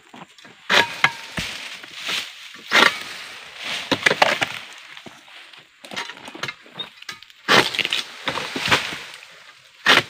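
Freshly sharpened egrek, a sickle blade on a long pole, pulled again and again through the tough stalk of an oil palm frond. Each pull is a sharp cracking, splintering cut in the hard, dry fibre. The strokes come in two clusters with a pause in the middle.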